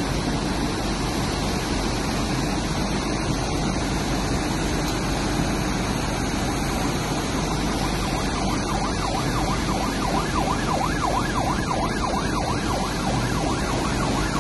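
Steady rush of torrential rain and floodwater. A little over halfway through, an emergency vehicle's fast yelping siren comes in underneath and carries on, its pitch sweeping up and down several times a second.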